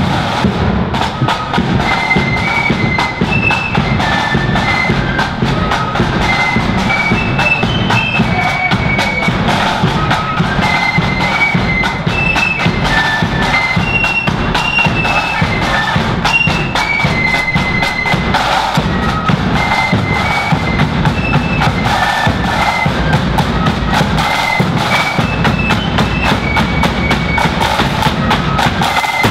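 Marching flute band playing a melody on flutes over rattling snare drums and a steady bass drum.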